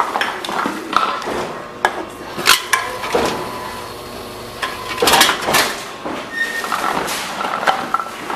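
Envipco CF-1500 reverse vending machine taking in returned bottles and cans: a string of clattering knocks and clinks as containers are fed in and handled inside, loudest about halfway through.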